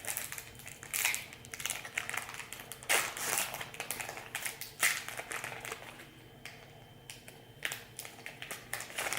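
2019 Bowman baseball cards being handled and sorted by hand: irregular rustles and light clicks of card stock, the loudest about three and five seconds in.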